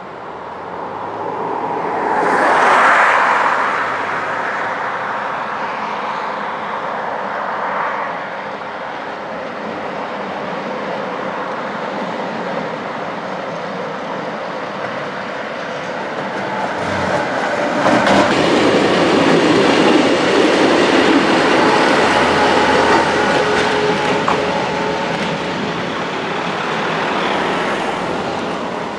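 AB Appenzeller Bahnen Ge 4/4 1 electric locomotive and its passenger coaches running past, a steady rumble and clatter of wheels on rail that is loudest about three seconds in. The train is heard again, louder, from a little past halfway.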